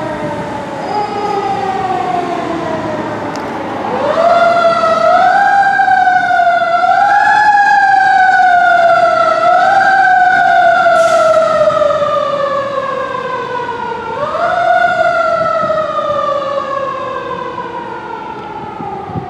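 Fire engine's siren wailing on a 2019 KME Severe Service pumper. The pitch climbs quickly twice, then sinks slowly over several seconds, with a few small surges in between, like a mechanical siren being spun up and left to coast down.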